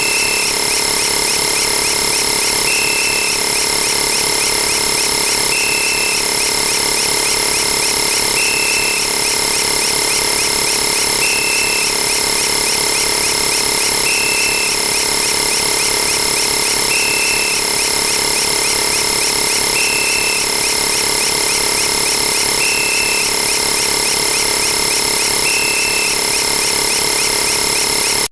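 A dense, steady wall of many sound effects playing at once, with several held tones and a short high beep about every three seconds.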